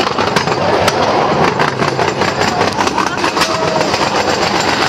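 Cambodian bamboo train (norry) running along the rails: a small engine drives it while the steel wheels rattle and knock over the track, with many irregular sharp clicks over a steady clatter.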